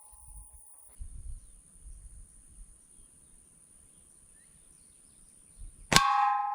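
A .22 air-rifle pellet strikes a steel helium tank near the end with a sharp clang, and the tank rings on with several bell-like tones that fade slowly. The ringing of the previous hit dies away in the first second.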